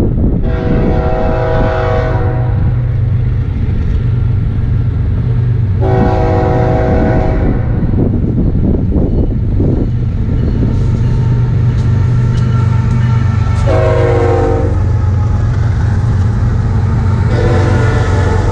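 Nathan K5HL five-chime air horn on a BNSF ES44C4 diesel locomotive sounding four blasts, long, long, short, long: the standard grade-crossing signal. Beneath the horn the lead locomotives' engines give a steady low drone that grows as they pass near the end.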